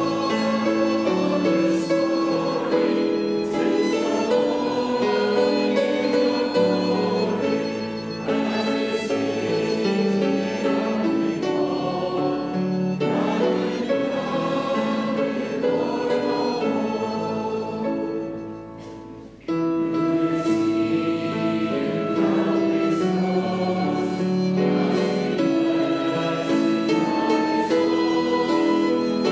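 Congregation singing a hymn with instrumental accompaniment. About two-thirds of the way through, the music dies away into a brief pause and the next verse begins.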